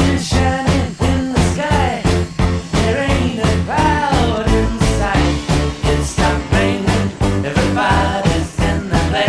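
Upbeat background music with a fast, steady beat, a heavy bass line and a gliding melody.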